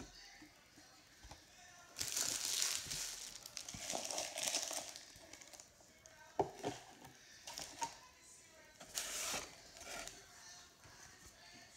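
Cardboard of an Elite Trainer Box being handled as its inner flaps are folded back, in several separate bursts of rustling, with a few sharp clicks in the middle. Light crinkling comes from the foil booster packs inside.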